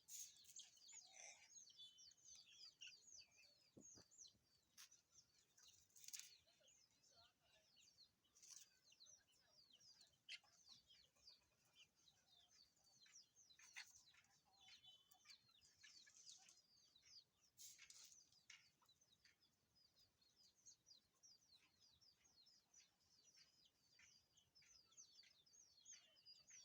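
Faint chirping of many local fowl: quick, high, falling chirps overlapping continuously, with a few short sharp clicks among them.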